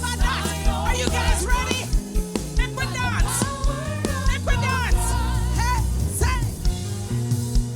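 Jamaican gospel band playing, with bass and a steady drum beat under a wavering melodic line with vibrato.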